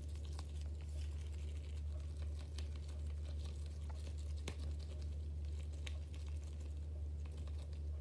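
A homemade balloon stress ball being squished and stretched in the hands: soft rubbery crinkling with scattered small clicks, over a steady low hum.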